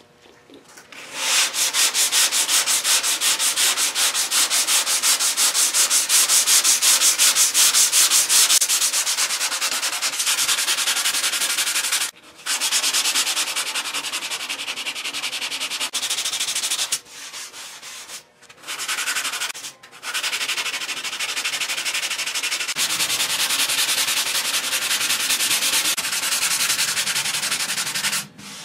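Hand block sanding of Rage Ultra body filler on a car fender: sandpaper on a flexible sanding block scrubbed back and forth in rapid short strokes, stopping briefly a few times midway. It is shaping the filler into a curved body-line transition.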